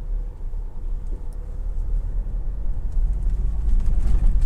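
Tata Harrier's 2.0-litre diesel engine pulling the SUV up a steep dirt climb at very light throttle, a low steady rumble that grows louder near the end, with light crackles of tyres on loose soil and stones.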